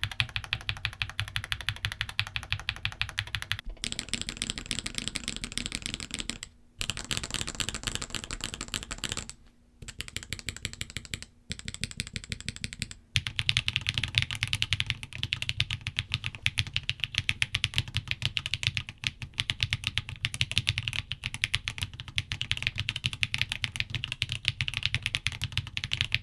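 Rapid typing on mechanical keyboards with tactile switches, Gateron Quinns (nylon top and bottom housing) compared with Gateron Baby Kangaroos (nylon bottom, polycarbonate top). It comes as several takes with brief breaks between them, each with a somewhat different clack.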